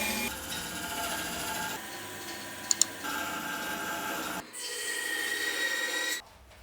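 Wood lathe running while a tool rasps against the spinning wood-and-epoxy blank. The sound changes abruptly several times, with two sharp clicks near the middle, and cuts off just before the end.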